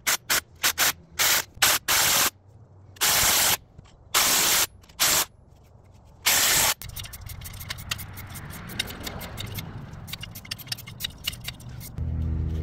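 DeWalt cordless impact wrench running a coil-spring compressor's threaded rods down on a front strut spring: a quick string of short bursts, then four longer bursts of hammering. After that, lighter clicking and rattling, and a low engine hum comes in near the end.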